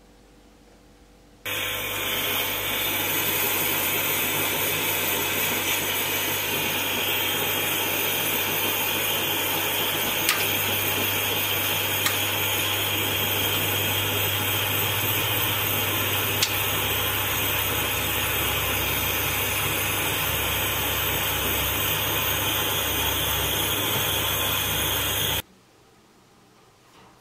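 Gas torch flame burning steadily with a loud hiss and a low hum underneath, heating small metal pieces on a honeycomb soldering board. It starts abruptly about a second and a half in and stops abruptly near the end, with a few faint ticks in between.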